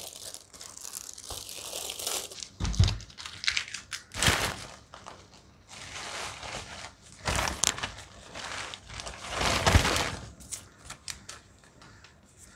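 Plastic packaging crinkling and rustling as plastic-wrapped collapsible water bags are handled and cleared away and a paper mailer is put down, with a few dull knocks. The noise dies down near the end.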